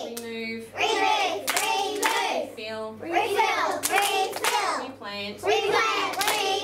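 A class of young children chanting words in unison and clapping their hands in time, splitting each word into its prefix and the rest of the word.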